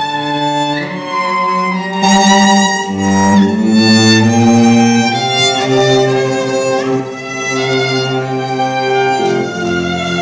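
Violin and cello playing a slow piece together with grand piano, the violin carrying the melody in long notes with vibrato.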